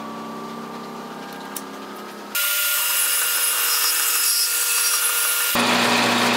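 Shop machines in quick succession: a steady motor hum, then from about two and a half seconds in a portable band saw cutting steel tubing with a hiss and a high ringing tone, and near the end a combination lathe turning a steel rod.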